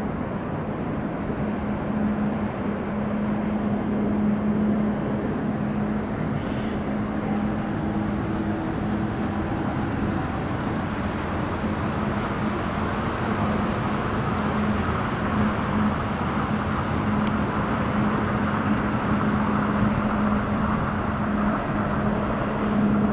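Airbus A350-941 airliner's Rolls-Royce Trent XWB jet engines on approach to land: a steady rushing roar that grows louder from about halfway through, over a constant low hum.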